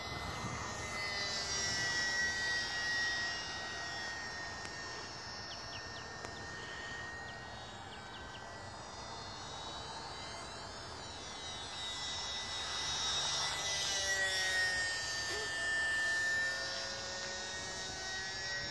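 Electric motor and propeller of a Champ S+ micro RC airplane whining in flight overhead. It grows louder and dips slightly in pitch as the plane passes close, once near the start and again past the middle.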